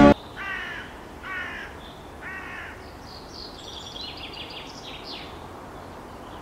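A crow cawing three times, about a second apart, over quiet outdoor background noise. Then a run of higher, shorter bird chirps follows.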